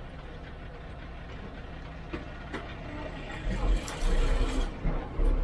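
Inside the cab of a TNSTC bus: the diesel engine and road noise run steadily, then about three seconds in come heavy low rumbles and thuds as the bus moves through the toll plaza.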